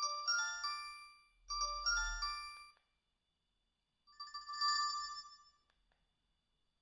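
Alcatel One Touch 217D mobile phone playing ringtones through its small speaker: a short, bright melody phrase plays twice in a row, then after a pause of about a second a different short tone plays.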